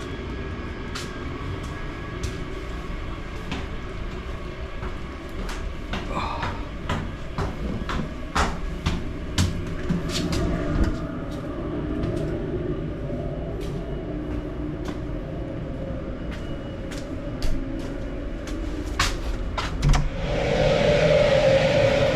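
Steady low rumble of a boat's machinery, with scattered sharp clicks and taps. About twenty seconds in, a louder rushing hiss with a steady droning tone starts.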